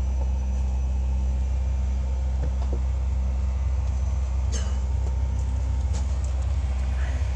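Steady low drone inside a parked airliner's cabin, the hum of the aircraft's running systems with no change in pitch.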